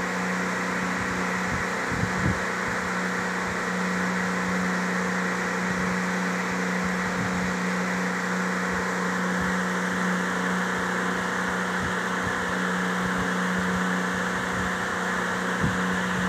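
Steady mechanical hum with a constant low tone, and faint soft knocks here and there, two a little louder about two seconds in and near the end.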